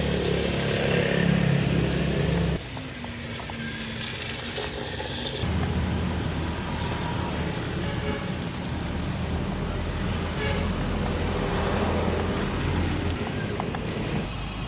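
Small electric gear motors of a homemade remote-control excavator running with a steady hum. The pitch and level shift abruptly about two and a half seconds in and again about five and a half seconds in, as motors switch on and off.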